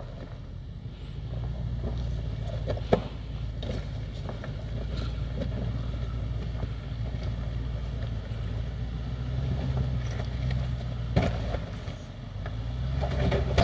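Range Rover Sport engine running at low revs as the SUV crawls over loose rocks toward the microphone, its low hum growing louder as it comes closer. Tyres crunch over the stones, with two sharp knocks of rock, one about three seconds in and one near eleven seconds.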